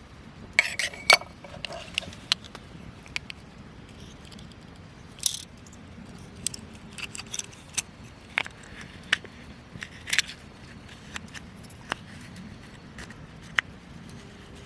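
Metal cooking gear clinking and clattering: a quick cluster of ringing clinks about half a second in, then scattered single sharp clicks and clinks.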